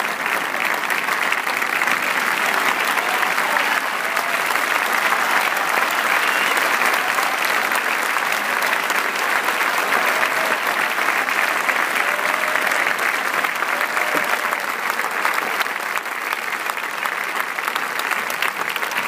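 Large audience applauding steadily: dense, continuous clapping from a full house.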